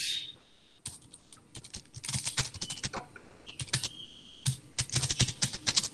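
Typing on a computer keyboard: quick runs of key clicks with short pauses between them.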